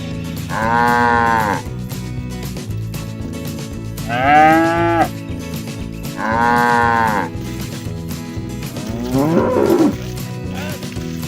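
Cattle mooing: four calls of about a second each, a couple of seconds apart, the last one rougher and rising. A steady low drone runs underneath.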